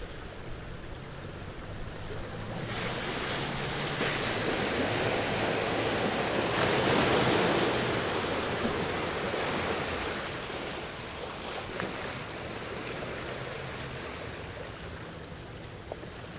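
Ocean waves washing in: a steady surf hiss that swells to one broad surge about halfway through, then slowly falls back.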